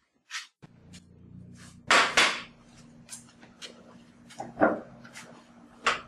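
Dishes knocking and clinking on a glass-topped dining table as plates and cups are set down: a series of short knocks, the two loudest close together about two seconds in, over a low steady hum.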